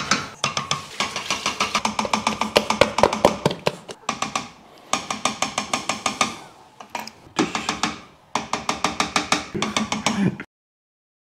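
A wooden cooking spoon rapidly knocking on a steel pot, in fast even runs of sharp knocks with some ringing, broken by a few short pauses. It cuts off abruptly about ten and a half seconds in.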